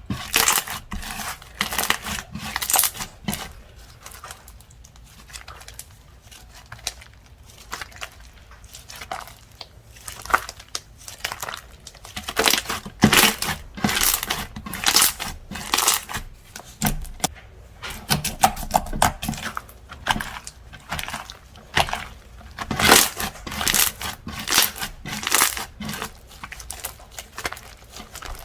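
Slime being pressed, squeezed and stretched by hand, giving dense, irregular crackling and popping clicks that come in clusters, with a quieter stretch a few seconds in.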